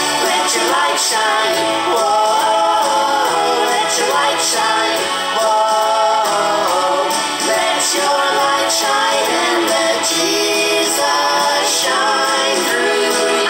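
A song: singing voices over instrumental backing with a steady beat.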